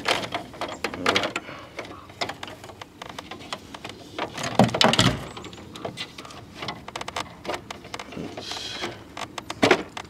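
Plastic front panel of a window air conditioner being pulled off and handled: a string of clicks, knocks and rattles, loudest about five seconds in and near the end.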